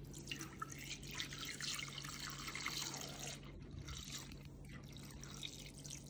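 Milk pouring in a thin stream from a plastic jug into a stainless-steel Thermomix mixing bowl, splashing and trickling onto butter in the bottom. The faint pouring is a little louder in the first three seconds or so, then lighter.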